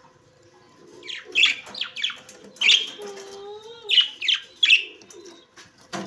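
Caged parrots chirping: a run of about eight sharp, falling chirps that start about a second in, with a lower held whistle-like call around the middle.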